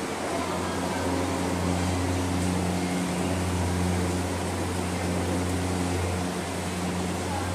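A machine running with a steady low hum under an even hiss.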